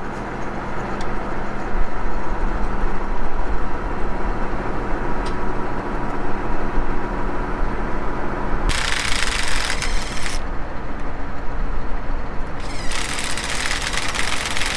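Tractor diesel engine idling steadily, with two spells of hiss, about two seconds each, over it: one at about nine seconds and one near the end.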